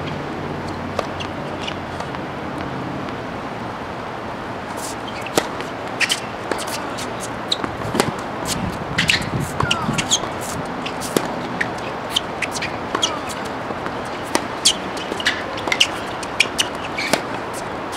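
Tennis ball play on an outdoor hard court: sharp pops of rackets striking the ball and the ball bouncing, coming about once a second from about five seconds in, mixed with short squeaks of sneakers on the court. Under it a steady outdoor hiss, with a low hum fading out in the first few seconds.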